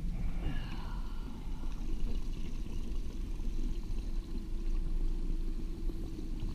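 Small outboard motor running steadily at trolling speed, with water splashing and sloshing close to the boat.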